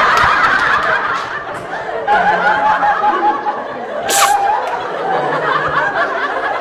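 People giggling and chuckling over a murmur of voices, with a brief sharp burst of noise about four seconds in.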